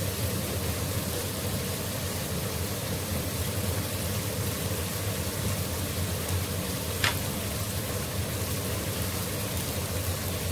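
Masala frying in oil in an aluminium pot, a steady sizzle, with a single sharp click about seven seconds in.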